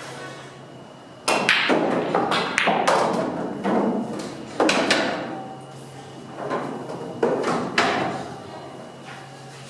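Pool balls clacking: a run of about a dozen sharp knocks of cue and balls striking, bunched together over the first few seconds and spaced out later, each with a short ring.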